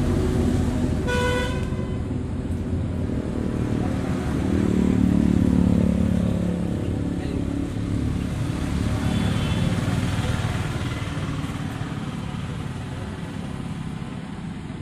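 Road traffic noise with engines running and a short vehicle horn toot about a second in.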